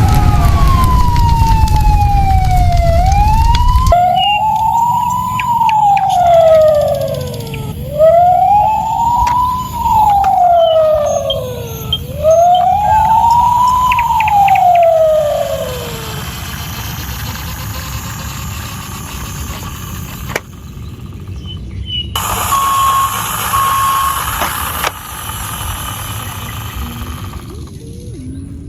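Siren wailing, its pitch rising and falling in about four slow sweeps, then stopping about 16 seconds in. Two short beeps follow later.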